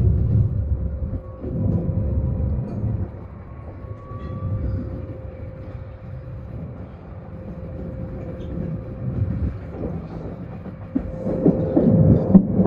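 Passenger train running on the rails: a low rumble with a steady hum, and a faint thin squeal in the first few seconds. The rumble dips in the middle and grows louder again near the end.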